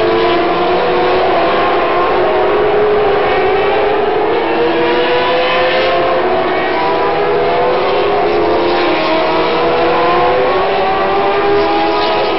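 Several go-kart engines running hard at once around an oval track, their pitch rising and falling as they accelerate and pass.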